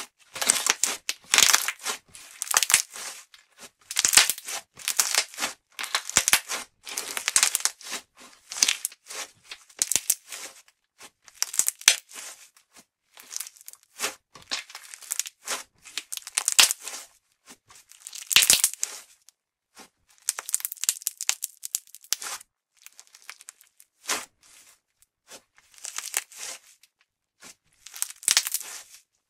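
Pink putty slime being kneaded and squeezed by hand, giving bursts of sticky crackling and popping every second or two, with short pauses between squeezes.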